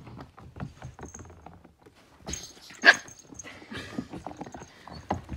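Two puppies play-wrestling on a hardwood floor: scuffling and the tapping of paws and claws, with one sharp yip about three seconds in.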